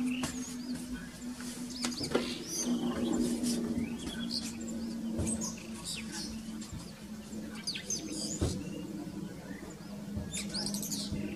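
Blue rock thrush singing: short, scattered high chirps and warbled phrases, over a steady low hum.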